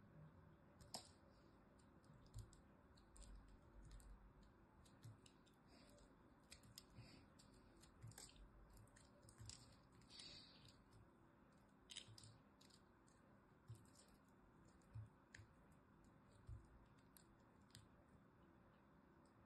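Faint, crisp crackles and clicks as a cube of crunchy pressed soap flakes is broken and picked apart by fingers, coming in irregular bursts that are busiest in the middle and sparser near the end.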